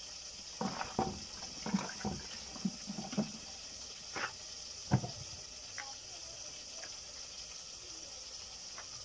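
Water sloshing and splashing in a plastic basin as onions and tomatoes are washed by hand, in a run of short splashes over the first three seconds. Two sharper knocks follow near four and five seconds, the second the loudest sound, over a steady high hiss.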